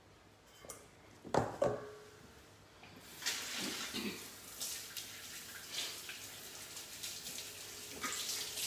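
Two sharp knocks about a second and a half in, then a kitchen tap running into a sink from about three seconds in, the stream splashing unevenly as hands are washed under it.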